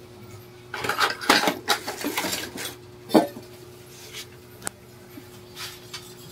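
Loose metal motorcycle engine parts being handled, clinking and knocking against each other: a burst of rattling clinks in the first couple of seconds, a sharper knock about three seconds in, then a few single clicks.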